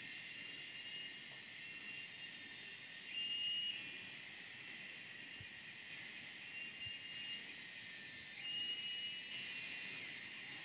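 Forest insects calling: a steady high-pitched drone, with shorter trills from other insects repeating every second or two.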